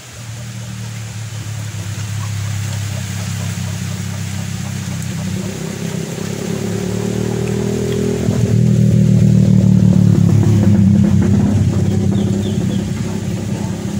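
A motorcycle engine running close by with a steady low drone, growing louder from about eight seconds in and easing off near the end.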